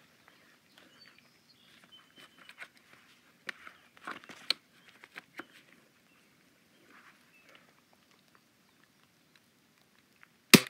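A single gunshot, a sharp crack near the end, after several seconds of soft rustling and light clicks.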